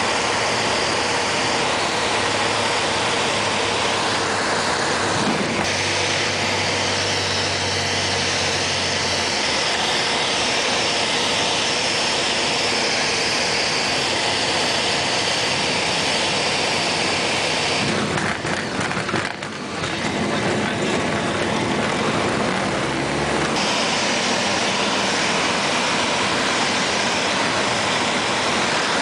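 Cockpit noise of a Piper PA-28-180 Cherokee (Embraer Tupi) at takeoff power: the 180-hp four-cylinder Lycoming engine and propeller drone steadily through the takeoff run and climb. A brief crackle comes about two-thirds of the way through.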